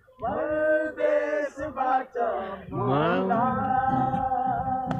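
A man singing a phrase, ending in a long held note from about three seconds in.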